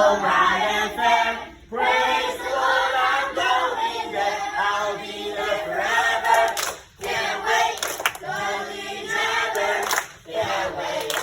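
A group of voices singing together in chorus, in phrases broken by short breaks.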